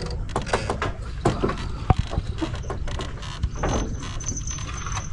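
Fishing reel being wound in, its gears clicking and whirring irregularly, with a thin high whine in the second half.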